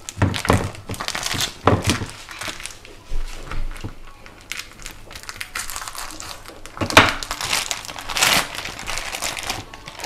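Clear plastic wrapping on a raw turkey leg crinkling in irregular bursts as a knife slits it open and hands pull it back.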